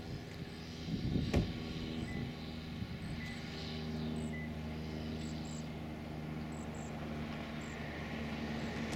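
Four-wheel-drive John Deere tractor's diesel engine running steadily under load as it pulls two tillage implements, a low even drone. A short sharp knock about a second and a half in.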